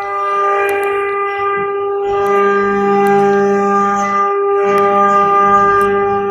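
Background music with long held notes like a wind instrument; a lower note comes in about two seconds in.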